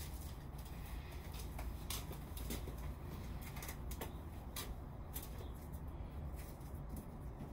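Steady low outdoor rumble with scattered short clicks and rustles from a rubber balloon and a cardboard glider being handled.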